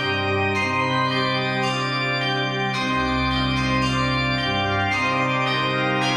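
Organ music: sustained chords held over a bass line that moves to a lower note about three seconds in and changes again near the end.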